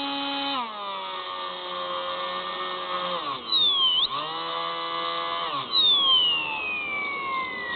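Electric motor and propeller of a small RC plane whining as it flies, heard from the onboard camera. The pitch drops about half a second in as the throttle comes back, dips and climbs again around the middle, and drops once more near the end, each change marked by a brief high falling whine.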